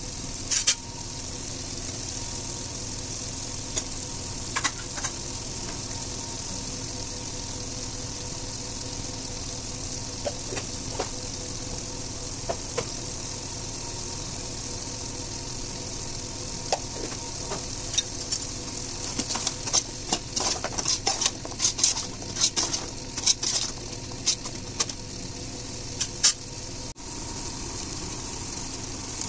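Chicken gravy sizzling steadily in an aluminium pot on a gas stove, with a utensil scraping and knocking against the pot now and then, busiest in the last third.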